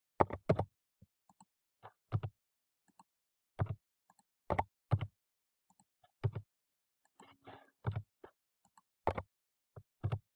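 Irregular clicks and taps of a computer keyboard and mouse, about a dozen in all, some in quick pairs, as numbers are typed into text boxes on a slide.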